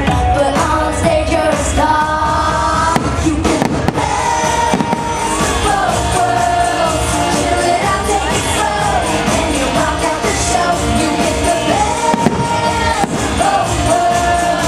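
A song with a singing voice playing loud as a fireworks show soundtrack, with fireworks bangs going off through it.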